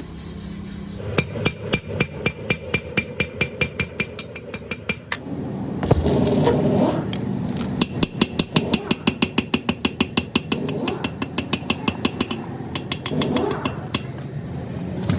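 Hammer striking metal in quick, even blows with a ringing tone, about four to five a second. The blows come in two runs, the first from about a second in and the second from about eight seconds in.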